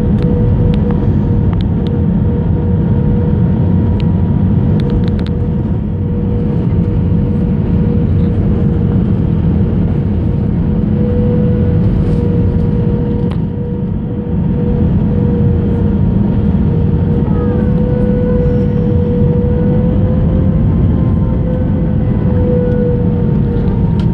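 Airliner on its landing approach heard from inside the cabin: a steady, loud rumble of engines and rushing air with a steady whine, and a few faint clicks.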